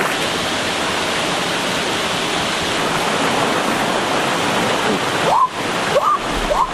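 Steady rush of flowing water, like a forest stream or small waterfall. Near the end a few short rising pitched sounds come in over it.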